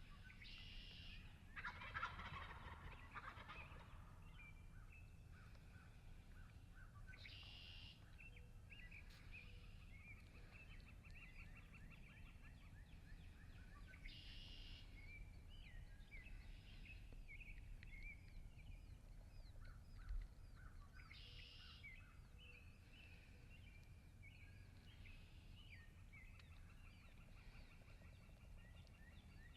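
Faint wild turkey gobbling several times, about every seven seconds, over songbirds chirping and trilling.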